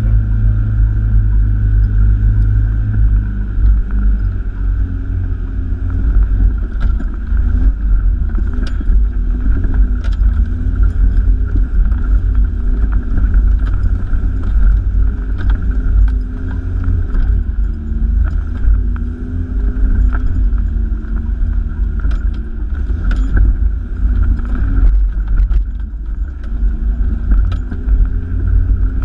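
Toyota Hilux heard from inside the cab while driving over a rough dirt track: the engine runs with its pitch rising and falling under a heavy low rumble, and scattered knocks and rattles come from the cab and body over the bumps.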